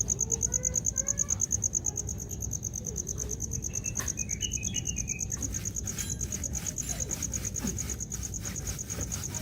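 Insect trilling steadily, one high note pulsing fast, with a few short bird chirps about halfway through.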